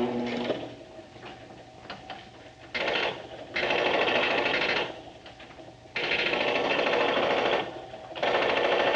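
Arcade machine-gun game firing in four bursts of rapid mechanical rattling, each lasting about one to one and a half seconds.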